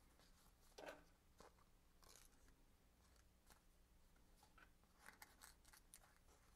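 Near silence with faint, scattered rustles and small taps of cardstock being handled and a paper flower on foam squares being pressed down onto a card, a few in a quick cluster near the end.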